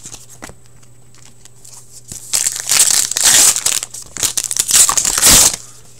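Foil wrapper of a hockey-card pack crinkling and tearing as it is ripped open by hand, in loud crackly bursts from about two seconds in until shortly before the end.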